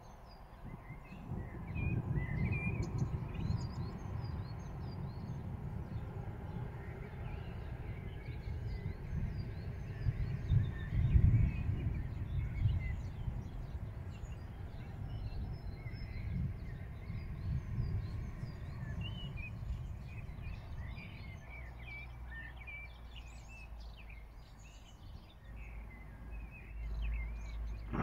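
Birds chirping and singing over a low, uneven rumble that swells and fades, loudest about eleven seconds in.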